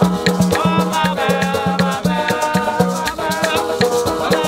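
Live Haitian band music: banjo and acoustic guitar strumming over a repeating bass note, with a maraca shaking out a steady beat and a voice singing a phrase about a second in.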